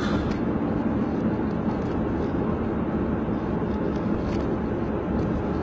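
Steady road and engine noise heard from inside a moving car's cabin, a constant low rumble with a few faint ticks.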